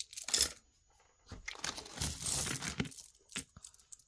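Crinkling and rustling of packaging being handled: a brief rustle just after the start, then a longer one lasting about a second and a half, and a single sharp click near the end.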